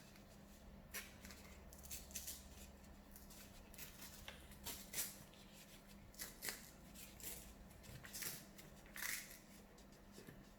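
Sheet of paper being handled and torn in small pulls: faint, irregular crinkles and short rips.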